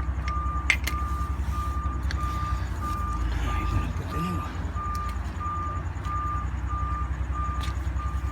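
A garbage truck's backup alarm beeping steadily at one pitch, about two beeps a second, over the low rumble of the truck's engine; the beeping signals that the truck is reversing. A few light clicks of tools are also heard.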